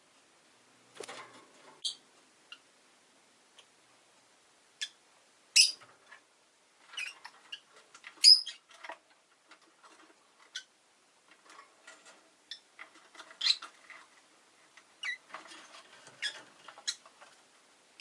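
Rosy-faced lovebird giving scattered short, high chirps and squeaks, with soft clicks and rustling between them.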